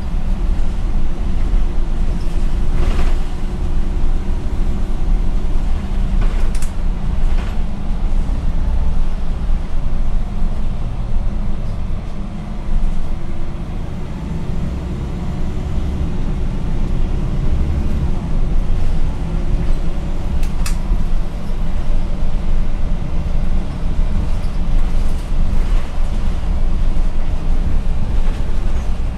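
Cabin noise inside a MAN NL243 CNG city bus under way: a steady low drone from the engine and drivetrain with road rumble, and a few short clicks from the interior along the way. The drone eases a little about halfway through, then builds again.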